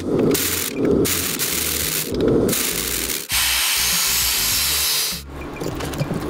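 Abrasive cut-off wheel grinding through a red-hot steel bar: a steady hiss that starts about three seconds in and stops about two seconds later. Before it, low pulses come about once a second.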